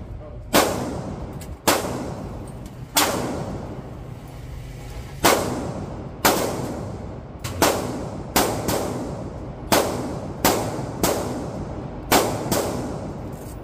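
Pistol shots in an indoor shooting range, about a dozen at an uneven pace, some in quick pairs and triples, each ringing with a long echo off the concrete.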